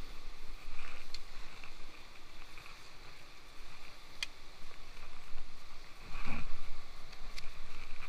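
Sea surf washing over a rocky reef shore, with wind buffeting the microphone and a louder rush about six seconds in. A few sharp clicks come from handling the telescopic fishing pole and line.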